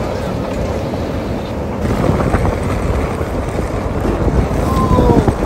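Strong wind buffeting the microphone in a steady low rumble, over choppy water slapping against the hulls of moored catamarans.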